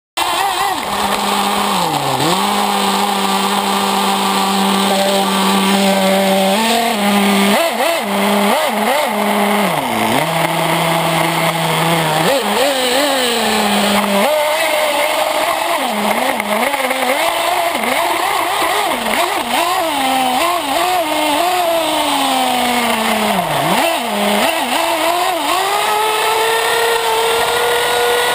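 Small nitro (glow-fuel) engine of a radio-controlled buggy, heard up close from a camera mounted on the car. It runs loud and rises and falls in pitch with the throttle: steady for the first several seconds, then repeated quick dips and revs, climbing to a steady higher pitch near the end.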